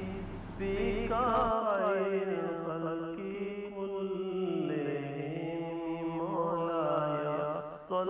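A voice chanting an Arabic salawat, a blessing on the Prophet, in long, wavering held notes. There is a brief break near the end.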